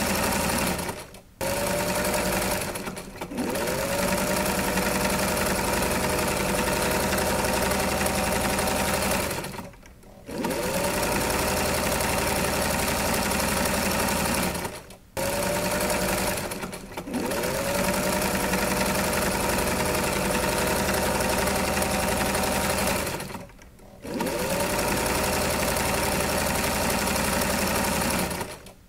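Electric sewing machine running in long stretches. It stops briefly several times, and each time it starts again it spins up with a rising whine before settling to a steady pitch.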